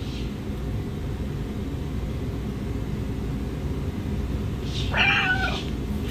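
A cat meows once, briefly, about five seconds in, over a steady low rumble.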